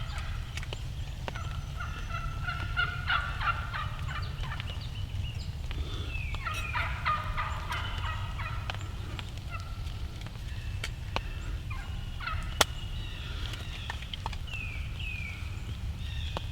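Wild turkey gobbling, two rattling gobbles a few seconds apart, with a few short falling call notes near the end. A single sharp click is heard about two-thirds of the way in.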